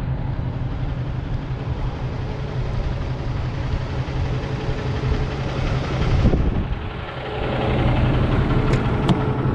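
Semi truck's diesel engine running with a hiss over it, as the driver slides the trailer tandems. The hiss stops about six seconds in, and from about eight seconds in the engine grows louder and steadier.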